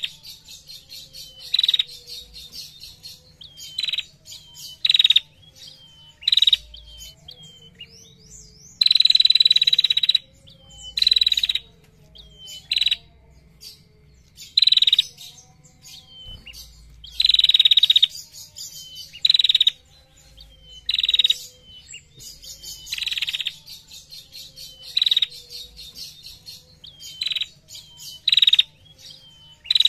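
A caged female prenjak songbird calls over and over in loud, rapid chattering trills ('ngetir'), each burst lasting from a fraction of a second to over a second. Softer short chirps come in the gaps between the bursts.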